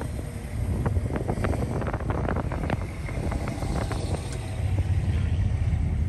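Car driving on a wet street, heard from inside the car: a steady low engine and road rumble with scattered short clicks and tyre noise, growing somewhat louder about two-thirds of the way through.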